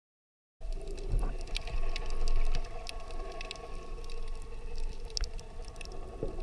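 Underwater sound of surf surging over a rocky reef: a muffled low rumble with a steady hum and scattered sharp clicks, starting abruptly about half a second in.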